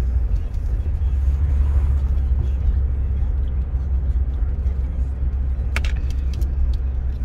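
Steady low rumble of a car being driven, heard from inside the cabin, with a short cluster of sharp clicks about six seconds in.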